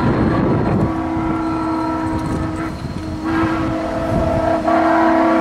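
Steam locomotive whistle of Iowa Interstate QJ 6988, a Chinese-built 2-10-2, blowing a long held blast that dips about halfway through and swells again near the end, over a low rumble from the train.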